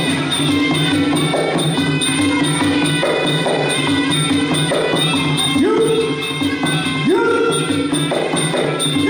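Traditional Khmer boxing ring music: a reed pipe (sralai) playing held notes that bend upward twice in the second half, over a steady repeating drum rhythm.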